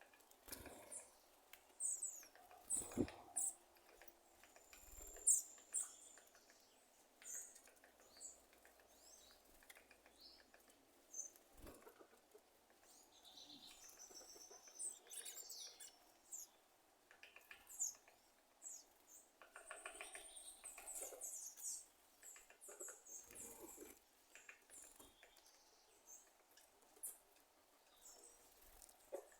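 A sabiá thrush making irregular short, sharp clicks and brief high chirps, a popping like popcorn.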